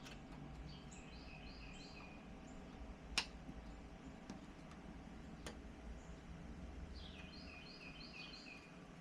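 A bird singing two short phrases of quick repeated chirps, one near the start and one near the end, over a low background hum. A sharp click sounds about three seconds in, with a fainter one a couple of seconds later.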